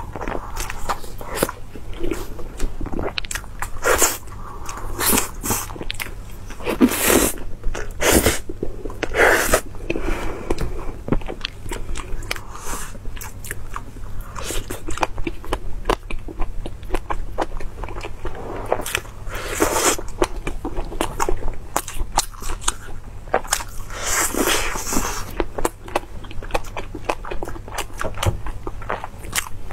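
Close-miked eating: a person biting and chewing cake and glazed meatball skewers, with many short, sharp clicks from the mouth and food throughout and a few louder bursts along the way.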